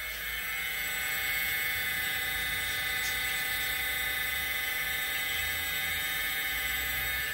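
Walkera Scout X4 quadcopter's brushless motors spinning at armed idle on the ground: a steady whine of several tones over a low rumble, swelling slightly about a second in.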